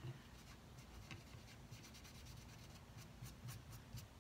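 Faint rubbing and swishing of fingers smearing wet paint across a wooden drawer front, a run of light strokes that comes more often toward the end.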